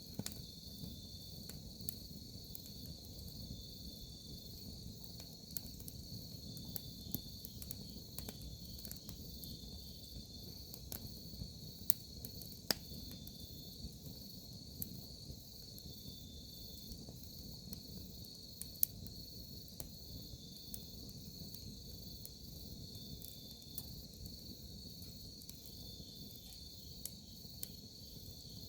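Crickets and other autumn grass insects trilling steadily in a high, even drone, over a wood campfire crackling with irregular sharp pops, a few of them louder.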